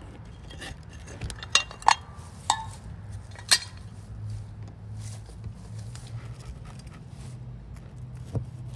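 Metal pie iron clinking and knocking as it is opened and the toasted sandwich is tipped out: several sharp separate clanks in the first few seconds, the loudest about three and a half seconds in, and one more near the end.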